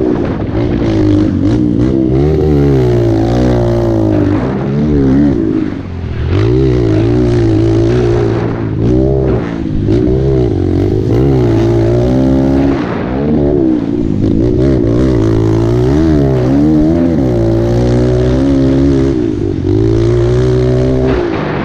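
Pit bike's single-cylinder four-stroke engine, heard from the rider's helmet, revving up and easing off again and again as the bike accelerates, shifts and slows for turns.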